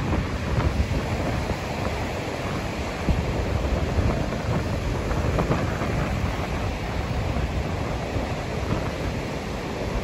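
Rough surf breaking and washing up a sandy shore, a steady wash of noise, with wind gusting on the microphone.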